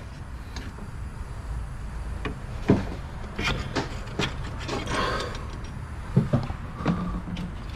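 Scattered metallic clinks and knocks of hands and tools handling parts under a Jeep's engine bay, a few sharp knocks in irregular clusters over a steady low hum.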